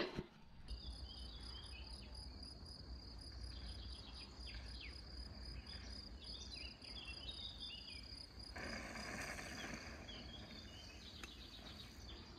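Faint field ambience: insects trilling steadily, with a fast, regular, very high pulsing chirp, scattered short bird chirps and a low wind rumble.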